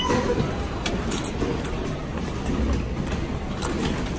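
Steady low rumble and hubbub of a railway station concourse at the ticket gates, with a few sharp clicks.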